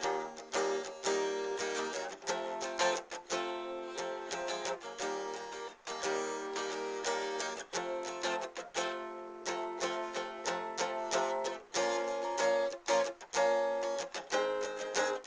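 Instrumental guitar music: a guitar strummed and picked in quick, rhythmic chords and runs.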